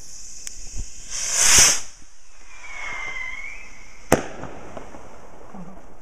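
New Year's Eve fireworks: a hiss swells and cuts off about a second and a half in, a faint whistle follows, then a single sharp bang about four seconds in as a firework bursts into sparks. A few faint pops sound between them.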